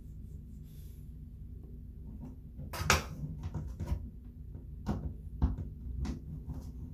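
Scattered knocks and clunks at uneven intervals, the loudest a little before three seconds in, over a low steady hum.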